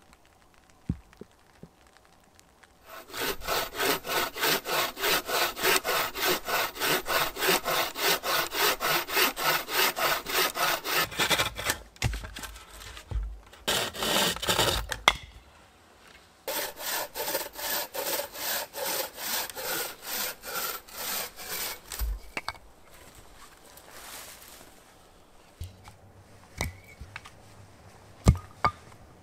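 A large homemade birch-and-sallow bucksaw cutting through a log in fast, even strokes, about three a second. The sawing stops for a few seconds of heavy knocks and a thud, then starts again, and a few sharp knocks come near the end.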